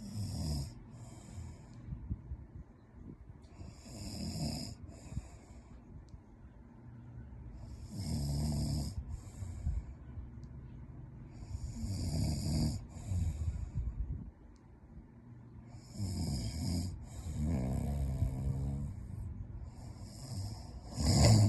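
A man snoring in his sleep, one snore about every four seconds, the loudest near the end.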